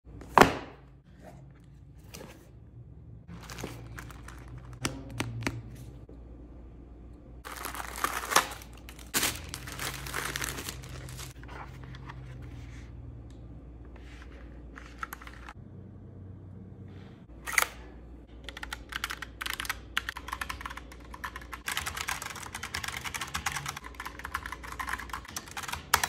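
Unboxing a Logitech POP Keys mechanical keyboard: a sharp knock at the start, then cardboard packaging and wrapping handled, torn and crinkled. Over the last several seconds the keyboard is typed on in fast, clattering keystrokes.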